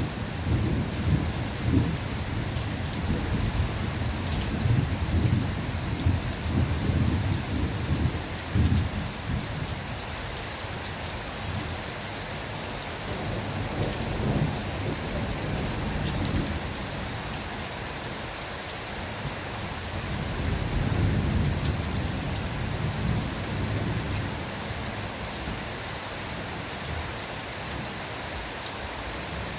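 Rain falling steadily in a forest, with thunder rumbling low through the first several seconds and again twice later, more weakly.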